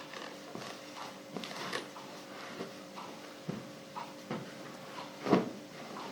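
Clothes ironing: an iron knocking and sliding on the ironing board in irregular strokes, with a louder thump about five seconds in, over a faint steady hum.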